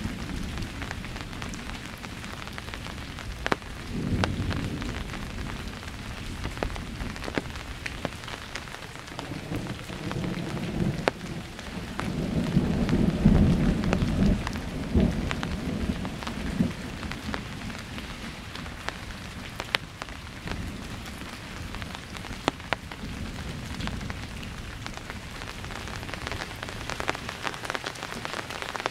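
Thunderstorm: steady rain falling with rolling rumbles of thunder that swell and fade several times, the loudest and longest about halfway through. A few sharp taps of single drops stand out over the rain.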